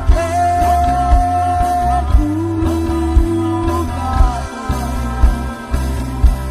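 Live rock band playing, with electric bass and a drum kit keeping a steady pulse. Over them come long held melody notes: a high one for about two seconds, then a lower one.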